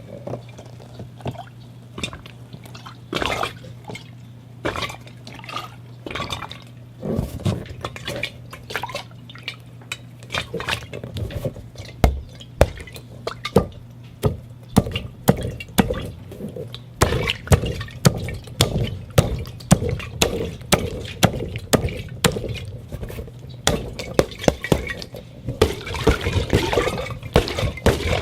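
Rubber glove being handled, making many short sharp clicks and pops at an irregular pace, sparse at first and much busier in the second half.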